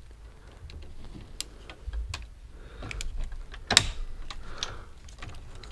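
Hand screwdriver backing out the terminal screw on a circuit breaker to release the hot wire: scattered light metal clicks and ticks, the sharpest a little under four seconds in.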